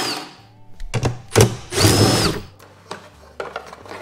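Cordless drill/driver spinning in two short bursts as it backs out a bolt on the slice seeder's housing: one burst right at the start, a second half-second burst with a whine that rises and falls about two seconds in. A couple of sharp metal knocks come between them.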